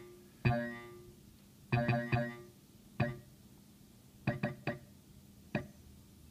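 Mutable Instruments Braids synthesizer module playing sparse triggered, pitched percussive notes, each decaying quickly as its internal envelope sweeps timbre, colour and level together. After about four seconds the hits turn into short clicky blips.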